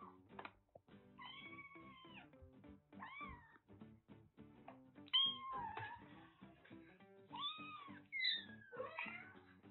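One-month-old kittens mewing repeatedly, about five high cries that rise and fall, the loudest about halfway through, over soft background music. They are impatient for their weaning food.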